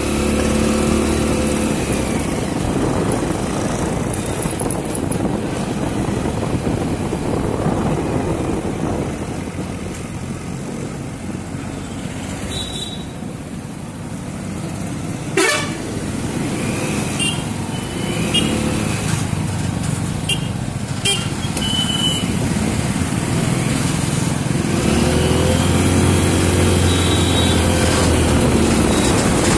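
Busy street traffic heard while riding through it: steady engine and wind noise, with several short vehicle-horn toots a little past the middle. A truck's engine passes close near the end.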